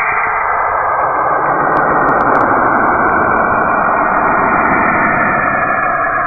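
Space-sound clip presented as the sound of Saturn: a steady, dense rumbling hiss with no clear tone, like a sonification of spacecraft radio recordings.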